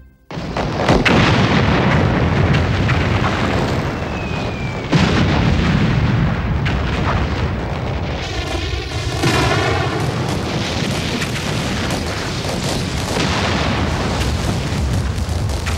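Artillery bombardment: heavy guns firing again and again, the blasts running together into a continuous rumble, with a sharper report about five seconds in.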